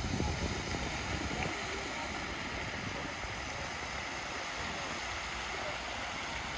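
Steady rushing hiss of large fountain jets spraying water out on a lake.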